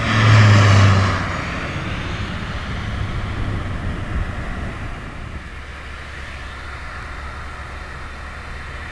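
A motor vehicle passes close by, loud for about a second with a low engine note and tyre and wind noise, then fades away. A steady low rumble carries on afterwards.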